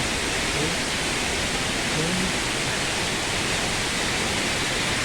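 Steady rushing of water falling down a high waterfall, an even hiss without breaks.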